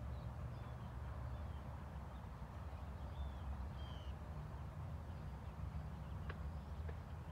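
Outdoor ambience: a steady low rumble with several short, faint bird chirps scattered through it, and two faint ticks near the end.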